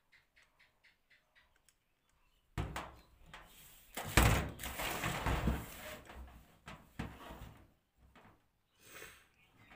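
Handling noise from an action camera in its clear plastic waterproof housing, its mount parts and plastic packaging being moved about on a tabletop: knocks and rustling that start about two and a half seconds in, loudest about four to five seconds in, then a couple of single clicks.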